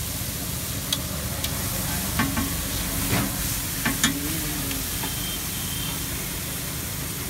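Chopped onion and masala sizzling in oil on a flat tawa griddle, with a flat metal spatula scraping and tapping on the griddle: a steady sizzle with a handful of sharp clicks between about one and four seconds in.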